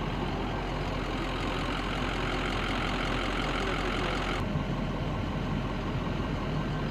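An engine running steadily in the background, heard as a constant low hum under a broad hiss; the higher hiss drops away about four and a half seconds in.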